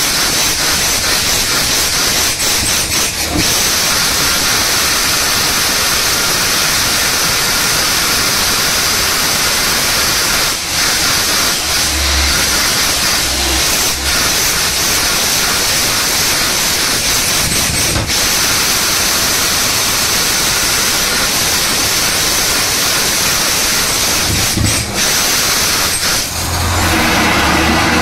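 Borewell drilling rig at work on a 6.5-inch bore: a loud, steady hiss of air rushing through the drilling, with the rig's engine running underneath. Near the end the engine grows louder.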